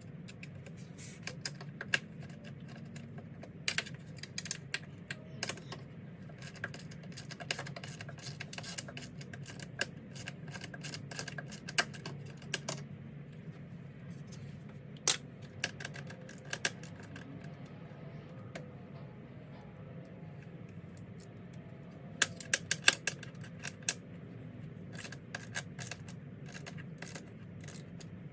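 Irregular light clicks and taps of small tools and parts being handled, coming in clusters with a lull about two-thirds of the way through, over a steady low hum.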